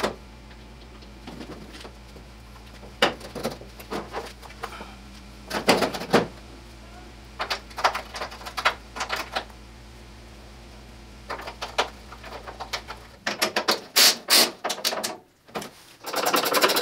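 Scattered metal clicks and small knocks of bolts, nuts and hand tools being handled while a car's front wing is bolted on, with a busier run of clicks a little after halfway. Near the end a steady, rapidly pulsing mechanical buzz starts.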